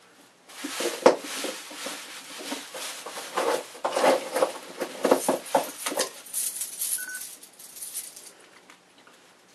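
Plastic bag rustling and crinkling as a hand rummages through it, with small clicks and light clinks of metal items, dying down to quieter handling over the last few seconds.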